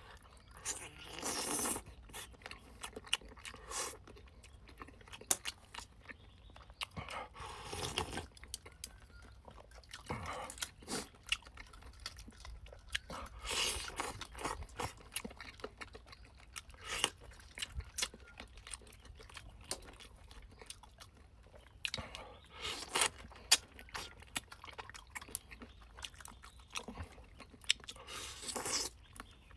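A person eating free-range chicken close to the microphone: chewing, biting and crunching, with many small clicks and a louder bite or slurp every few seconds.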